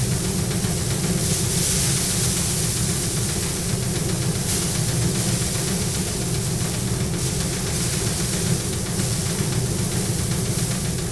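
Paddy thresher running steadily while bundles of rice stalks are held against its spinning drum: a constant machine hum under a rushing hiss.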